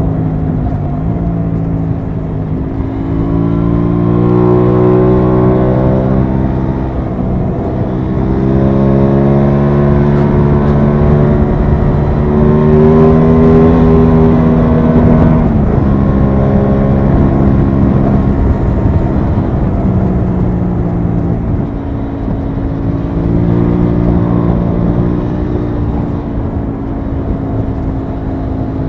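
Aprilia Tuono 660's parallel-twin engine heard from on board while riding. The revs climb twice under throttle, fall sharply about fifteen seconds in, then hold a steady cruise with a brief rise near the end, over wind rush.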